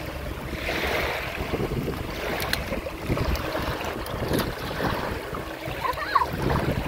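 Wind buffeting the microphone over small waves lapping and washing at the edge of a sandbar, a steady rushing noise with gusty low rumbles.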